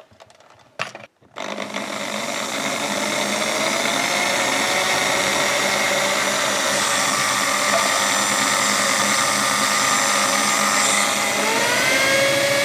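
Electric drill with a 2 mm bit starting up about a second in and running steadily as it drills through a small metal plug in a lock cylinder's pin chamber. Its pitch rises near the end.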